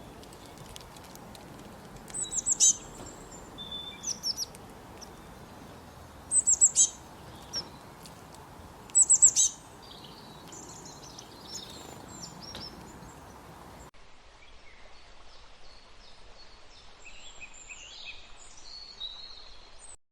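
Birds singing: a rapid phrase of short high notes comes three times, a few seconds apart, among softer chirps from other birds over a steady outdoor hiss.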